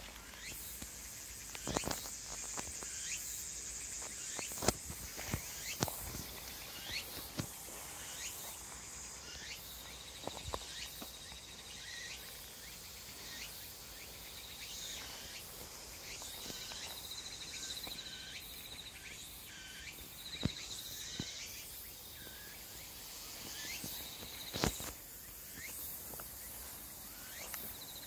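Footsteps tramping through dense weeds, with leaves and stems brushing and snapping at irregular moments. Insects trill in the background, and a high pulsing trill starts and stops several times in the second half.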